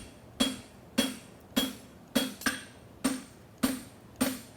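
Farrier's hammer striking a hot steel horseshoe branch on an anvil, drawing it out. Even blows about two a second, each with a short metallic ring.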